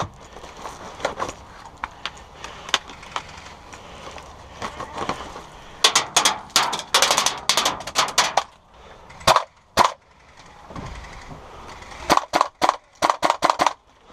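Gas blowback airsoft gun firing in rapid strings of sharp cracks. There are scattered shots early, a dense volley in the middle, two single shots, and near the end a run of about eight shots at roughly five a second.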